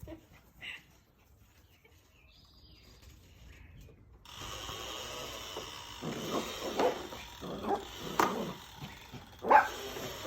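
A puppy barking, about five short barks in the second half, the loudest near the end.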